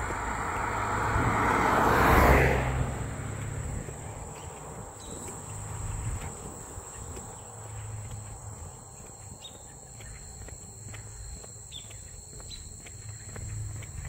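A car drives past on the road, its tyre and engine noise swelling to a peak about two seconds in and fading quickly. Then a steady high-pitched insect trill is left, with a few faint chirps.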